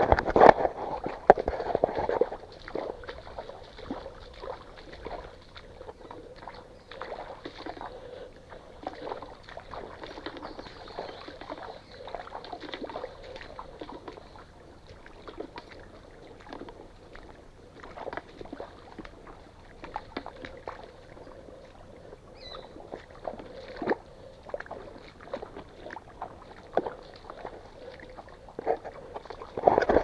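Water sloshing and splashing in irregular strokes as people wade on foot through a shallow stream bed. The splashes are loudest in the first couple of seconds.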